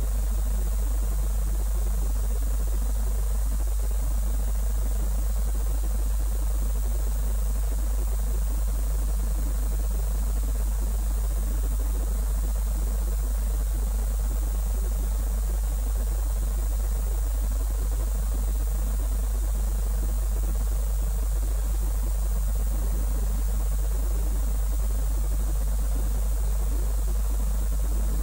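Steady low hum with a faint hiss over it; no distinct event stands out.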